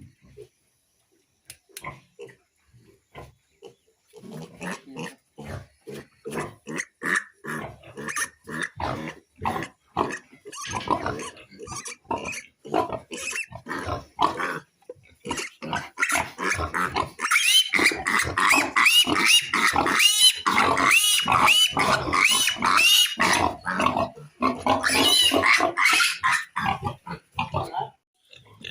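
Piglets grunting in many short grunts, then from about halfway through a piglet squealing loudly and over and over while it is held for a vitamin B-complex injection.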